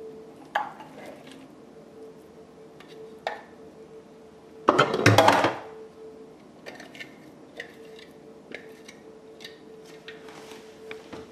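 Ground chicken being scraped out of a plastic food processor bowl into a mixing bowl: scattered light clicks and knocks, with one louder clatter lasting about a second around the middle. A faint steady hum runs underneath.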